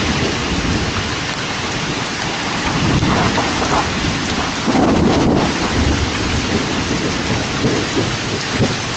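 Steady heavy rain with rolling thunder, the rumble swelling about three seconds in, again about five seconds in, and once more near the end, picked up by a Ring doorbell camera's microphone.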